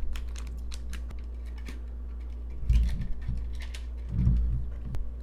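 Plastic clicks and knocks from handling an instant film pack and the Diana F+ instant camera back, with two louder thumps about two and three-quarter seconds and four seconds in.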